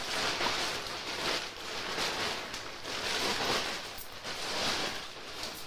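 A rushing hiss of noise that swells and fades about once a second, with no clear tone or rhythm.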